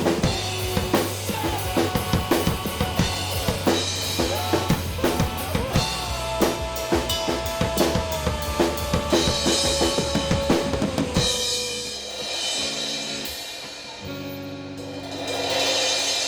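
Live band playing a rock song: drum kit pounding under guitars and a long held, wavering note. About eleven seconds in the drums stop and sustained chords ring on, swelling again near the end.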